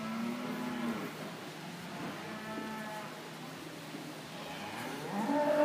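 Heifers mooing: one call right at the start, another about two seconds in, and a louder, rising moo near the end.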